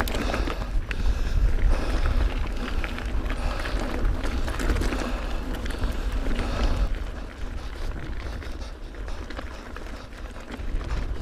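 Mountain bike rolling along a trail, heard through the rider's action camera: tyres crunching over gravel with small clicks and rattles, over a steady low rumble of wind on the microphone. The crunching quietens about seven seconds in as the track turns to grass.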